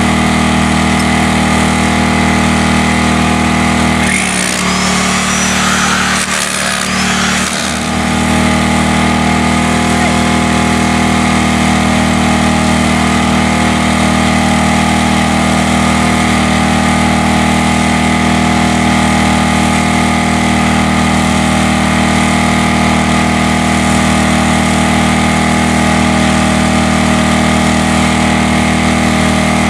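Small engine running steadily at an even speed, its sound briefly dipping and changing for a few seconds about four seconds in.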